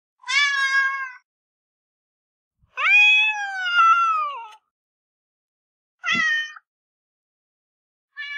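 Domestic cat meowing: three separate meows with silence between, the second a long drawn-out meow about three seconds in that rises then falls in pitch, and a fourth starting just at the end.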